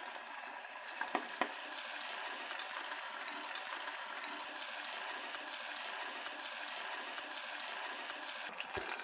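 Spring rolls deep-frying in a saucepan of hot vegetable oil, a steady sizzle with fine crackling throughout.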